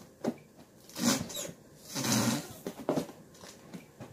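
Scattered handling noises: a few light clicks and short rustles.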